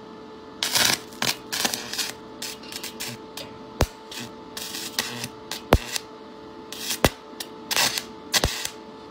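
Stick welder arc with soldering wire as the electrode, crackling and sputtering in short irregular bursts with a few sharp snaps as the arc strikes and breaks again and again; the soft wire melts away quickly. A steady hum runs underneath.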